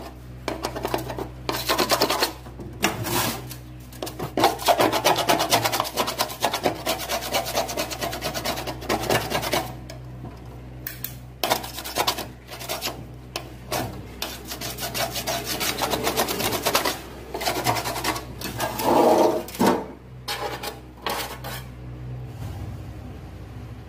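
Grime being scraped off a gas stove part: rapid scraping strokes in spells, with a couple of short breaks.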